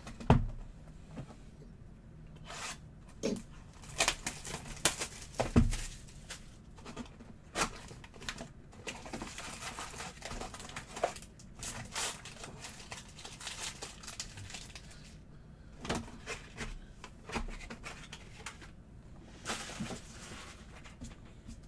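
Trading card boxes and packs being opened by hand: irregular tearing and crinkling of wrappers and cardboard, with a heavy thud near the start and another about five and a half seconds in.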